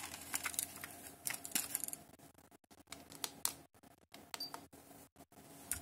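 Scattered sharp clicks and taps as fingers press the buttons on the front panel of a Pioneer KEH-M5000 car cassette radio, over a faint steady hum. The clicks are thickest in the first two seconds.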